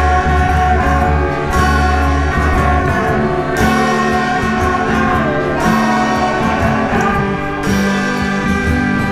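Instrumental music of sustained electric keyboard chords, the low note shifting about every two seconds.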